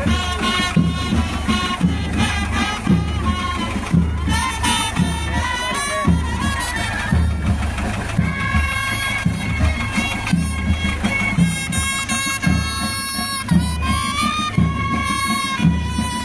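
Marching band music: a sustained wind melody over a steady drum beat, as played for a parade inspection.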